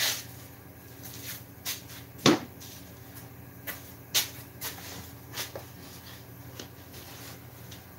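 A string of knocks and light clatter from objects being picked up and moved on a workbench, the loudest a sharp knock a little over two seconds in, over a low steady shop hum.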